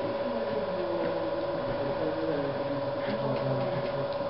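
A steady, pitched electrical hum, with faint low voices underneath.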